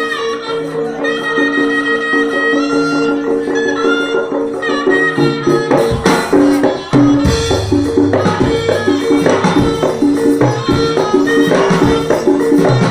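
Jaranan ensemble music: a slompret (shawm) melody over steady ringing gong-chime tones. From about six seconds in, the kendang drums come in hard with rapid strikes.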